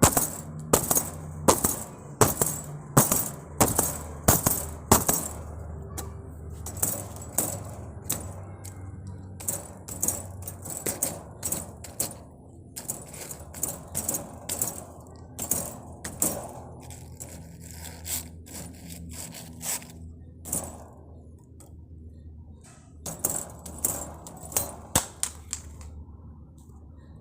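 A metal animal cage door and a cat grommet rattled and snapped by hand as a homemade gunfire effect: sharp metallic clacks, a fast regular run at first, then irregular bursts with pauses and a last quick run near the end. A steady low hum sits underneath.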